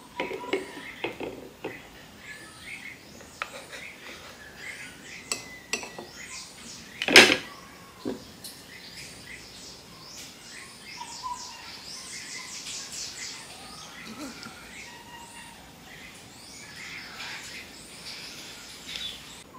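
Birds chirping in the background throughout, with a few light clinks of utensils against a ceramic bowl and one sharper knock about seven seconds in.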